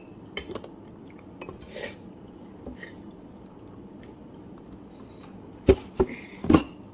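Eating at a plate: scattered small clicks of cutlery against the plate and soft eating noises, then three sharp clinks close together near the end, the loudest sounds.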